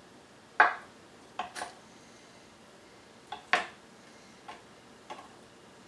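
Kitchen knife knocking on a wooden cutting board: seven short, sharp clacks, the two loudest about half a second and three and a half seconds in.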